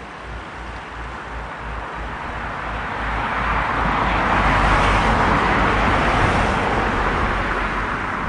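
A road vehicle passing on a nearby road, its noise swelling to a peak about halfway through and fading away again.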